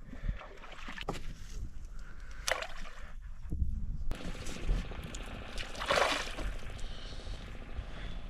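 Boat at sea: a steady low rumble with water sloshing, scattered knocks, and a brief rush of noise about six seconds in.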